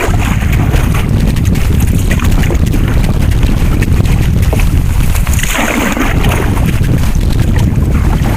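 Wind buffeting the microphone in a loud, steady low rumble, with scattered small knocks and a brief rushing splash-like burst about five and a half seconds in.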